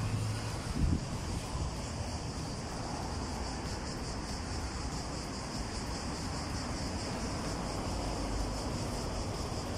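A steady, high insect trill with fast, even pulsing, over a low rumble of city traffic. A soft low bump about a second in.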